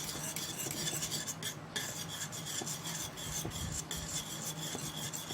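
A utensil stirring and scraping around a pot of homemade cooking cream that has thickened, a continuous rasping scrape with many small scratches. A steady low hum runs underneath.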